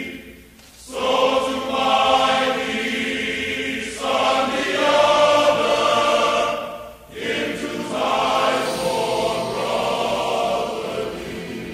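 A choir singing long, held chords in phrases, with short breaks about half a second in and about seven seconds in.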